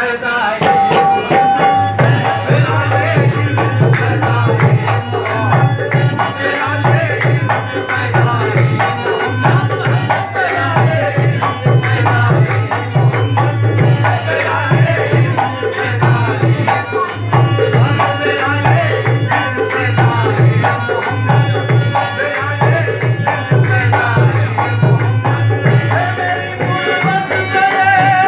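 Live qawwali: men singing with a hand drum. The drum comes in about two seconds in and keeps a steady beat under the voices.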